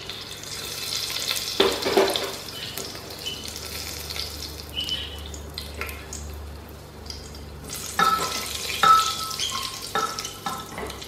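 Cumin and fenugreek seeds sizzling and crackling in hot oil in a pressure cooker as they temper. From about eight seconds in, a spatula stirs them, tapping against the cooker's metal several times with a short ringing note.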